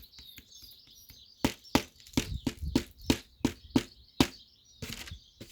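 A run of about ten sharp clicks and taps, roughly three a second, from the plastic parts of a disassembled computer keyboard being handled. Birds chirp faintly in the background.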